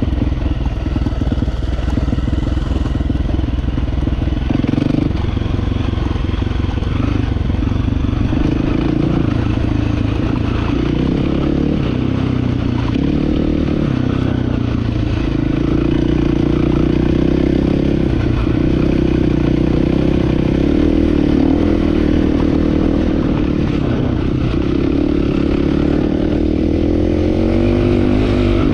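Dirt bike engine running hard, its pitch rising and falling as the throttle is worked, with a rising rev near the end.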